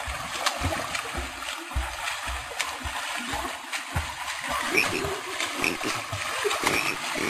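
Water splashing as people swim across a swollen river, with repeated low thumps and clicks of water churning close by.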